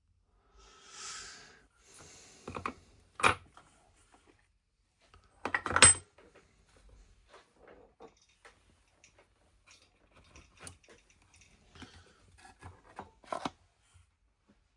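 Small metal watchmaker's tools being handled on a bench: a brief rubbing slide, two sharp metal knocks with a short ring, then scattered light clicks and taps as parts are moved and set down.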